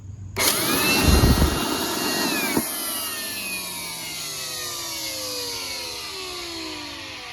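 Wet/dry shop vacuum switched on, its motor whining up to speed for about two seconds, then switched off and spinning down with a long falling whine. The motor sounds a little tight, which the owner puts down to the vacuum having got wet and rusted.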